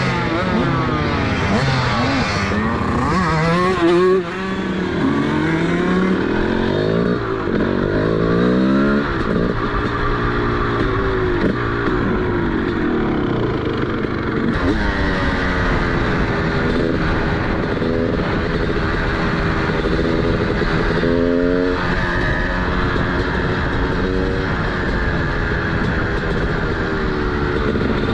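TM SMR 300 single-cylinder two-stroke supermoto engine with a DBR exhaust, revving up and falling back over and over under riding, with a brief drop in the note about four seconds in.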